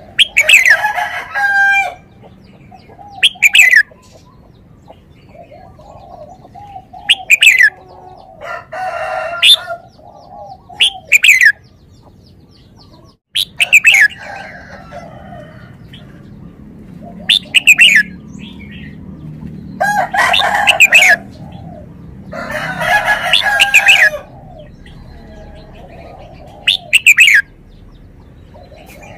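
Red-whiskered bulbul singing short, clear whistled phrases that glide in pitch, about one every two to three seconds. Longer, harsher calls lasting a second or more break in about four times.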